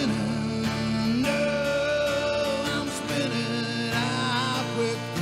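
A man singing a slow song to his own acoustic guitar. He holds a long note through the middle, and near the end a note wavers with vibrato.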